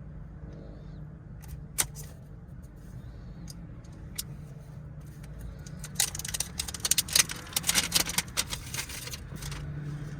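A box being cut and opened and its packaging handled: a few sharp clicks, then a dense run of crinkling and rattling from about six to nine and a half seconds in, over a steady low hum.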